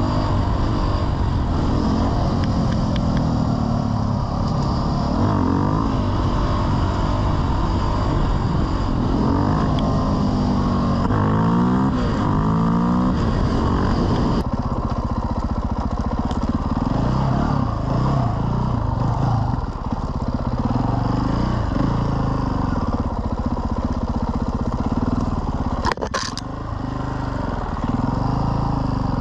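KTM EXC enduro motorcycle's single-cylinder four-stroke engine running and revving up and down repeatedly as it is ridden, over a rush of wind noise. A short sharp knock comes near the end.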